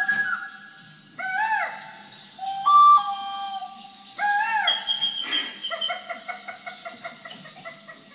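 A whistle playing a phrase of held notes, stepping up in pitch, with two swooping glides. It ends in a run of short repeated notes, about three or four a second.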